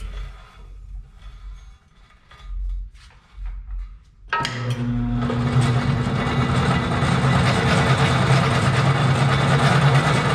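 Drill press with the steel pipe on its table: a few quiet knocks as the pipe is handled, then about four seconds in a click and the motor starts. It runs steadily with a hum while the bit cuts into the steel pipe, drilling a plug-weld hole.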